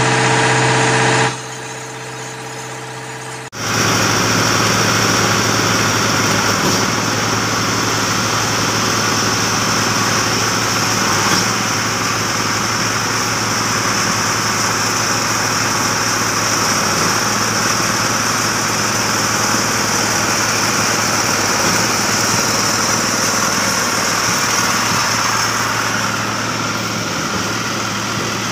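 Schwing Stetter SP1200 concrete pump's engine running steadily with a strong hum. It cuts in abruptly about three and a half seconds in, after a short louder hum and a quieter spell at the start.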